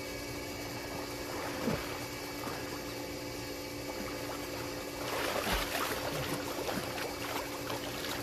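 Water splashing from a swimmer's breaststroke, growing louder from about five seconds in as he nears, over a steady faint hum.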